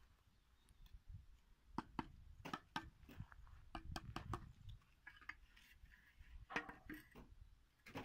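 Faint, scattered clicks and taps of a steel trowel and clay bricks as bricks are laid in cement mortar, over a low rumble.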